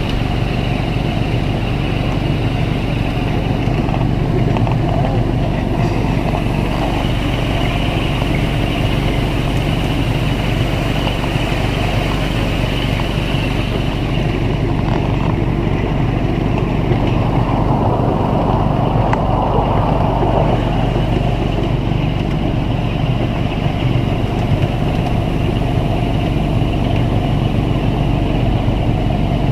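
Ride-on miniature railway train running steadily along its track, heard from one of the passenger cars: the continuous running noise of the locomotive and the wheels on the rails.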